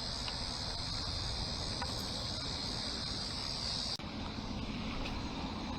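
Steady high-pitched insect chorus over a low rumble. The insect sound cuts off suddenly about four seconds in, leaving a low steady hum.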